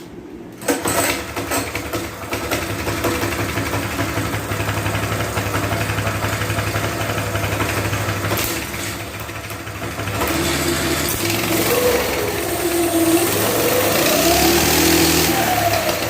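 Axis M200 mini bike's small gas engine starts about a second in and runs steadily, then revs up twice near the end, its pitch rising and falling. The bike runs a direct chain drive with the jackshaft removed.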